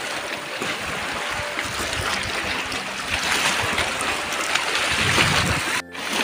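Small waves washing and lapping on a pebble shore and rocks, a steady rush of water, with a low rumble added from about two seconds in. The sound drops out for an instant near the end.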